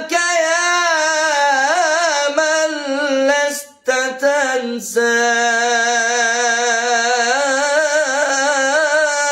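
A man singing an Islamic religious ibtihal unaccompanied, holding long notes with wavering melismatic ornaments. He breaks briefly for breath a little under four seconds in, and again just before five seconds.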